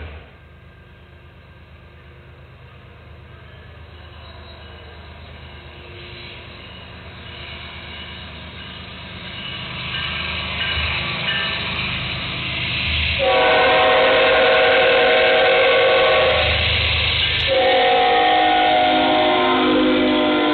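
Canadian National freight train approaching, its rumble growing steadily louder, then the lead diesel locomotive's multi-chime air horn sounds two long blasts, the first starting about two-thirds of the way in. Near the end the horn's pitch drops as the locomotives pass close by.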